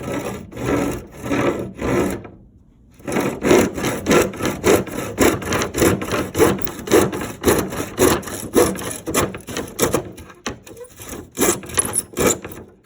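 Hand saw cutting through wood in steady back-and-forth strokes, about two a second, with a short pause about two seconds in and another break near the end.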